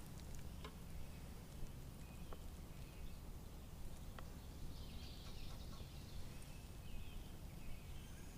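Quiet outdoor lake ambience: a low steady rumble, a few faint ticks, and a faint high chirping about five seconds in.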